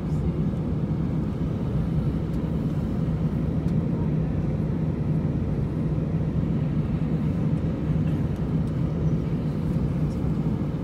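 Airbus A319 cabin noise at a window seat beside the engine: the turbofan engines running at low power on the ground, a steady low drone with an even hum and no change in pitch.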